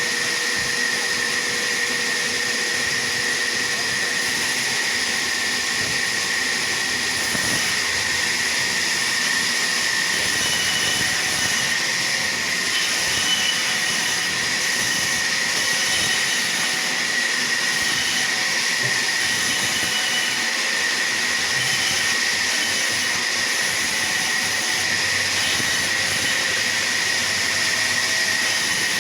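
Sawmill machinery running steadily: a constant high whine over an even rushing noise, with no break or change in level.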